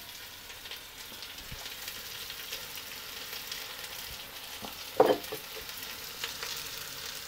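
Freshly added peppers, onion and tomato sizzling steadily in hot oil and chicken fat in a Dutch oven, starting to sweat down, with a few light clicks and one short louder sound about five seconds in.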